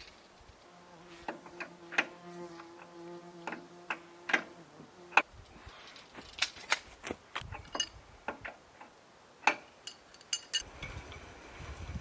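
A fly buzzing near the microphone for about four seconds, with scattered sharp clicks and knocks around it and a few louder knocks later on.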